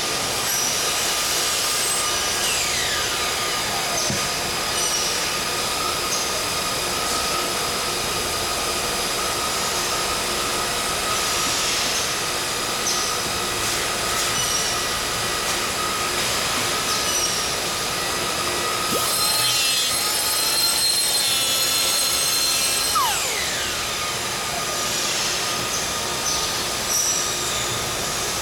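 Steady factory-floor machinery noise, with several constant high-pitched tones and an occasional falling squeal. A brighter hiss comes in for a few seconds about two-thirds of the way through.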